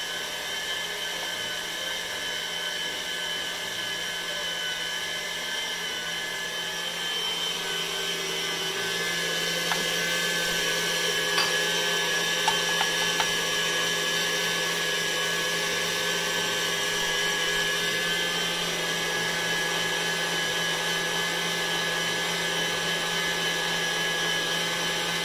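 KitchenAid stand mixer's motor running steadily as its wire whisk beats egg whites and sugar, a steady whine that grows a little louder about eight seconds in. A few faint clicks come partway through.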